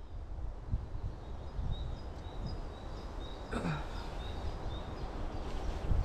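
Strong wind buffeting the microphone in uneven gusts, with a bird faintly repeating a short high call in the background.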